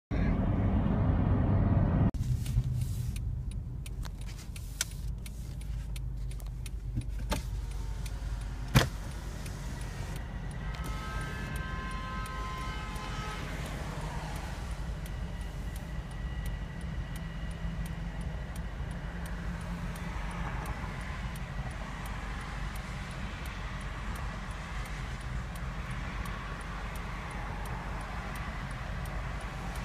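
Steady low rumble of a car idling, heard from inside the car. The first two seconds hold a louder rush of travel noise that cuts off suddenly. A few clicks and one sharp knock follow, and about eleven seconds in comes a brief sound of several steady pitches together that fades over about three seconds.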